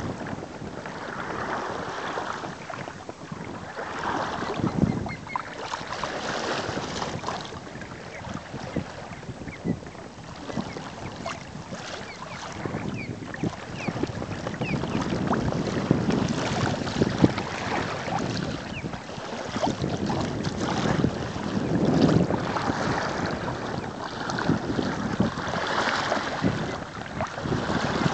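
Water rushing and splashing along the hull of a sailing kayak under way in choppy water, swelling and easing as it meets the waves, with wind buffeting the microphone.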